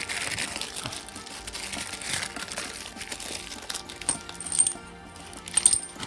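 Small metal suspension parts clinking together as they are handled and tipped out of a bag, with the packaging rustling; a few sharp, ringing clinks near the end. Background music plays underneath.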